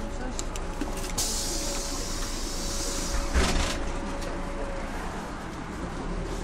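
City bus's compressed-air system: a hiss of air starting about a second in and lasting about two seconds, then a thump, over the steady running of the bus's Mercedes-Benz OM447hA six-cylinder diesel.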